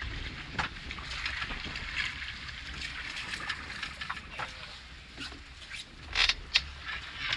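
Wind buffeting the microphone over water sloshing against a small boat's hull, with scattered light clicks and two sharp knocks about six seconds in.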